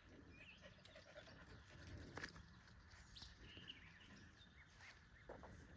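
Near silence with faint, scattered bird chirps and one brief click about two seconds in.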